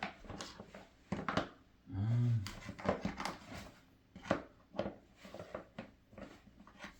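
Hard plastic toy playset parts clicking and knocking as they are handled and fitted together, with a short low hum of a voice about two seconds in.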